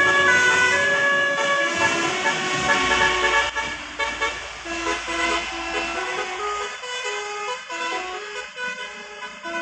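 Bus telolet horn playing a melody of short, stepped notes, loudest in the first few seconds and fading toward the end.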